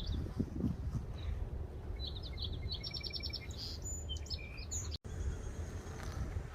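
Songbirds calling in the trees: a quick trill of repeated high notes and short chirps in the middle of the stretch, over a steady low rumble.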